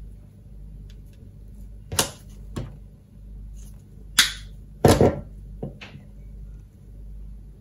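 Hand tools clicking and knocking on a wooden workbench as thin coax cable is stripped: side cutters snipping at the insulation and metal pliers being set down on the wood. There are about six separate sharp clicks and knocks, the loudest a short cluster about five seconds in.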